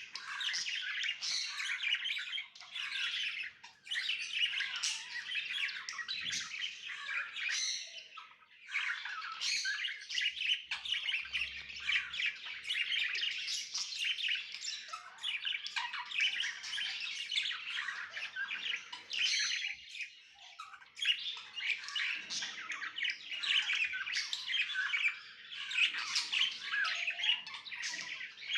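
Budgerigars chattering and warbling: a dense, unbroken run of quick chirps and squawks, pausing briefly about eight seconds in and again near twenty seconds.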